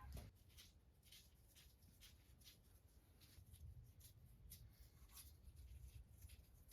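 Near silence: room tone with faint scattered clicks.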